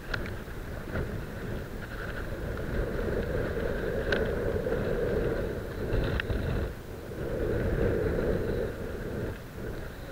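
Wind rumbling on the microphone, with two short sharp clicks about four and six seconds in.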